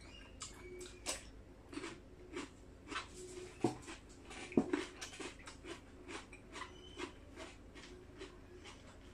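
A person chewing a mouthful of food close to the microphone: irregular wet crunches and mouth clicks, a few a second, with two louder crunches around the middle.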